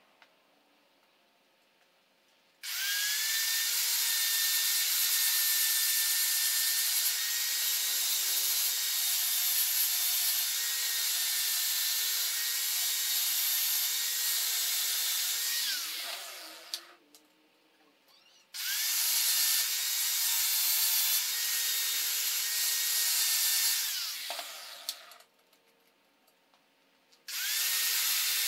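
Electric angle grinder grinding steel in three runs, each with a steady high whine. The first starts about two and a half seconds in and spins down after about thirteen seconds. The second runs for about six seconds and spins down, and the third starts near the end.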